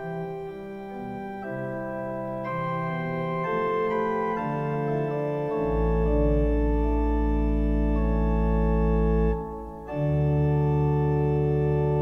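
Organ playing slow polyphonic sacred music, its notes held steady without decay and moving in stepwise chords. A deep bass note enters about halfway and holds, then there is a short break before a new full chord near the end.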